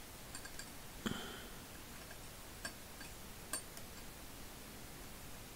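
A few faint metallic clicks and a light clink of small steel ratchet parts as a screwdriver holds down the detent spring and ball while the pawl is worked into a Snap-on SV-71A ratchet head. The loudest click comes about a second in, with a brief ring after it.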